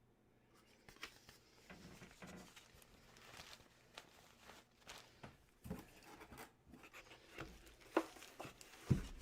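Irregular rustling, clicks and light knocks of items and packaging being handled by hand, with a dull knock near the end.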